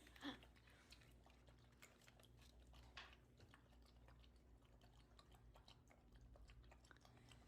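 Faint sounds of a Jindo dog chewing a treat: soft, irregular clicks and crunches over a low steady hum.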